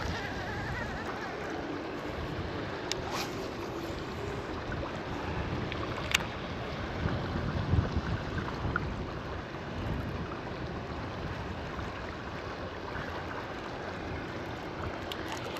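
Strong gusty wind buffeting the microphone over wind-stirred, choppy water. Two sharp clicks come about three and six seconds in.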